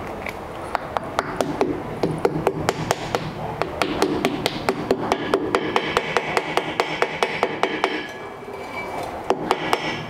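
Hammer tapping a metal dust cap onto a car's rear wheel hub to seat it: a long run of quick, light metallic taps, several a second, with a short pause near the end.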